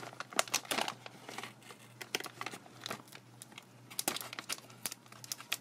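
Foil wrapper of a small trading-card pack crinkling and crackling in the fingers as it is picked and torn open by hand, in irregular bursts of small crackles.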